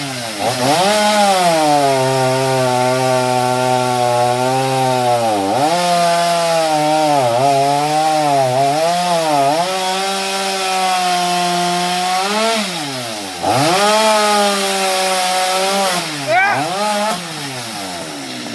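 Stihl MS 230 two-stroke chainsaw cutting into a coconut palm trunk. The engine pitch sags under load and recovers several times, with a few quick revs near the end.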